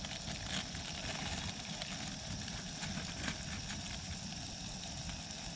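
Portable butane gas stove burning under a pot of noodles: a steady rushing hiss, with an irregular low rumble of wind on the microphone and a few light crinkles from the noodle packet.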